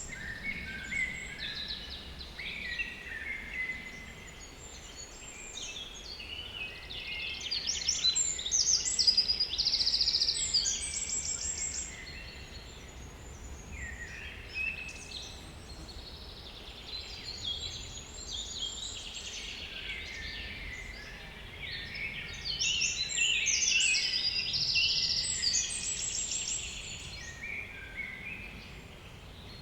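Several small woodland songbirds singing over one another, with quick overlapping trills and warbled phrases. The song swells twice, about a third of the way in and again near the end.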